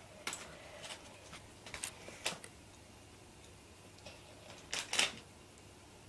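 LEGO bricks being handled and pressed together: scattered faint plastic clicks, with the loudest cluster about five seconds in.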